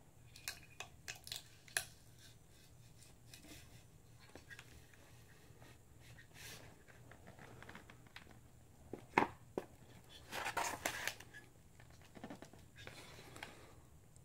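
Handling noises as a cast iron engine cylinder block is lowered onto a tape-wrapped centering pipe and lathe faceplate. A few light clicks come first, then a sharp knock about nine seconds in, followed by about a second of scraping as the iron block settles and slides into place.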